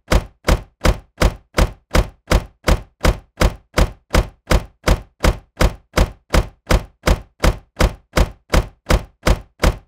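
A dull car-door thunk sound effect repeated in a fast, even loop, about three and a half thunks a second.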